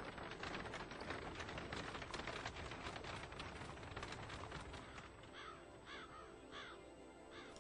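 A horse-drawn buggy clattering past, a dense rattle of wheels and hooves that dies away after about five seconds. Then a bird caws a few times.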